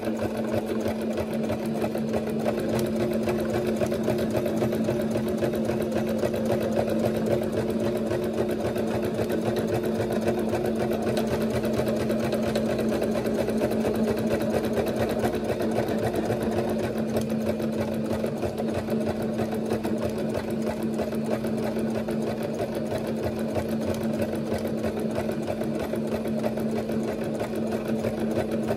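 Singer sewing machine running steadily at speed while free-motion stitching with a closed-toe darning foot, its motor hum and needle stroke even throughout.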